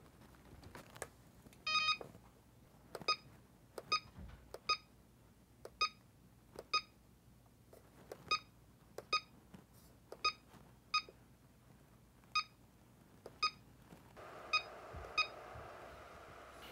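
CellPro PowerLab 8 charger beeping at each button press: short, high, identical beeps at an uneven pace, about twenty in all, as its menu is stepped through to set up a cell discharge. A few faint clicks come in between, and a faint steady hiss comes in near the end.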